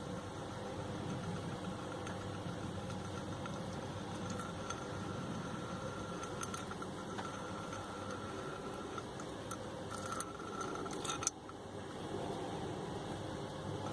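Scattered metallic clicks and clinks of a wrench working the square-headed gearbox drain plug on a Land Rover Freelander, over a steady background hum; the sharpest click comes about eleven seconds in.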